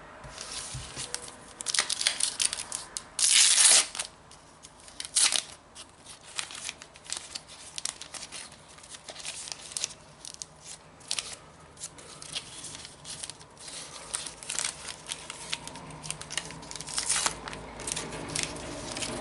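A trading-card packet wrapper being torn open, with a long rip about three seconds in and a shorter one about two seconds later, followed by crinkling of the wrapper and a run of small rustles and clicks as the cards are handled.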